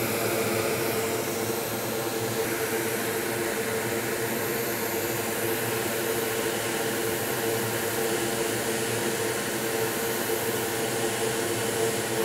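Steady whooshing air blower with a constant hum, from the soldering bench's air equipment.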